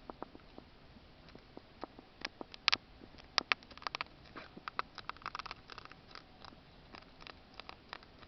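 Hedgehog eating food it has found: an irregular run of sharp clicks and smacks, busiest in the middle.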